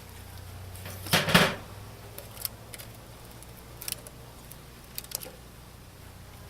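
Handling noises from working the bee package and its gear: a brief scraping rustle about a second in, then a few light clicks and taps, over a low steady hum.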